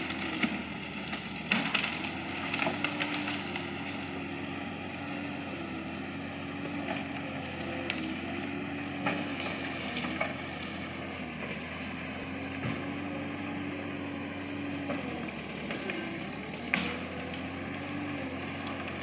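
Bobcat skid steer's engine running steadily, its pitch dipping briefly now and then under load, as wood cracks and snaps while trees are pushed over; a cluster of cracks comes in the first few seconds and a few more later.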